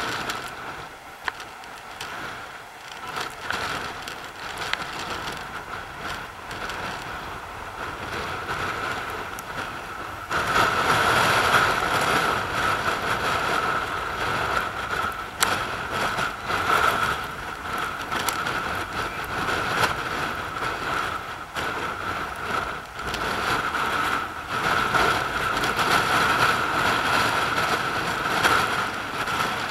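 Rough sea surf breaking and washing over rocks, with wind on the microphone and a few sharp ticks. It gets markedly louder about a third of the way in.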